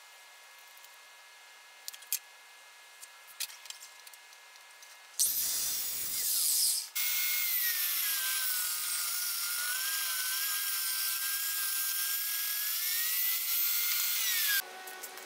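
Benchtop table saw ripping a wooden board. The motor whine drops in pitch as the blade takes the cut, climbs back near the end and stops suddenly. A quiet spell with a few light clicks comes first, then a short loud burst of saw noise about five seconds in.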